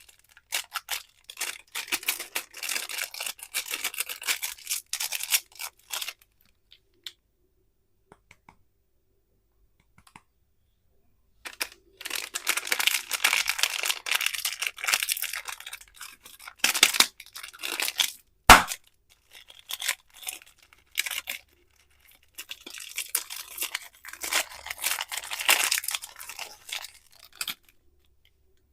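Crackly plastic candy wrappers being torn open and crinkled in several bursts with quiet pauses between them, and one sharp click about two-thirds of the way through.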